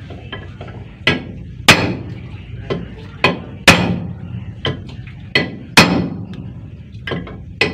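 Hammer blows on a flat steel bar set across the top of a crane radiator pump, over the bearing on its shaft: about a dozen sharp metal-on-metal strikes at uneven intervals, often in quick pairs, each with a short ring.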